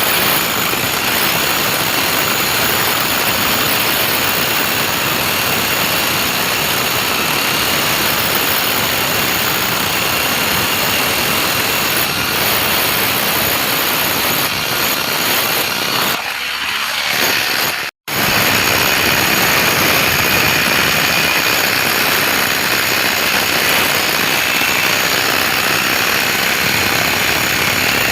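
Loud, steady machine noise with no clear pitch, which dips briefly and cuts out for an instant about eighteen seconds in before carrying on.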